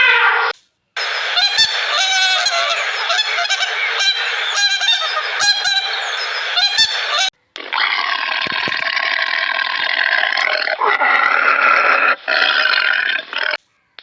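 Animal calls in three separate clips cut one after another, each stopping abruptly.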